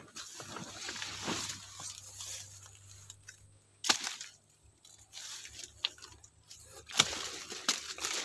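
Leaves rustling and crunching as someone moves through broccoli plants, with a few sharp clicks, the loudest about four and seven seconds in.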